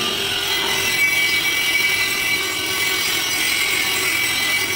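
Electric welding arc on a steel vessel plate, a steady hiss held throughout.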